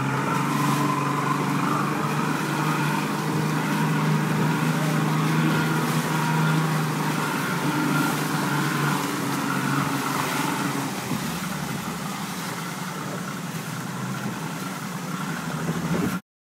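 Evinrude outboard motor running steadily as the boat moves, with a steady hum over the wash of water and wind. It grows a little quieter in the second half, then cuts off suddenly near the end.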